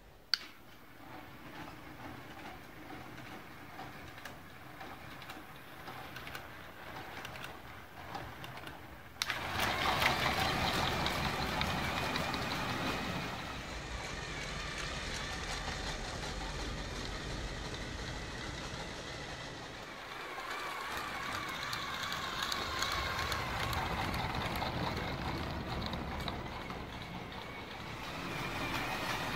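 Motorized building-block toy train running on plastic track: the small electric motor whirs and the wheels roll, the whine wavering in pitch. A sharp click comes just after the start, and about nine seconds in the running sound gets suddenly much louder.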